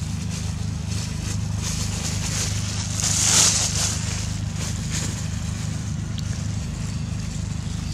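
A motor running steadily with a low, even hum. About three seconds in, a brief rush of hiss rises over it.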